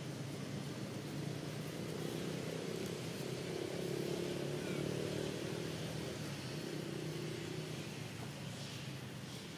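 A motor vehicle's engine hum that swells to a peak about four seconds in and then fades away.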